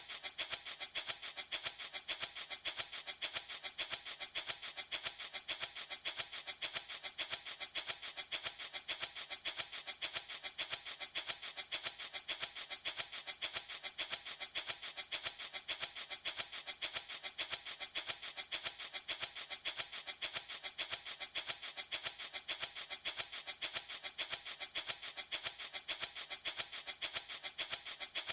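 A handmade wooden baby rattle shaken in a steady, even rhythm, each shake a short, bright rattle of beads or seeds.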